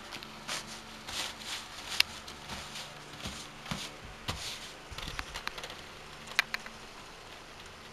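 Crumpled thin paper rustling and crinkling as it is unfolded and smoothed by hand, then light taps and a few sharp clicks from handling a plastic model kit box and its plastic parts, the loudest click about six and a half seconds in.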